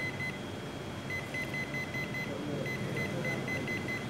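Ricoh copier control panel beeping at each touch of its arrow keys: runs of short, identical high beeps, about five a second, in three bursts. A steady machine hum runs underneath.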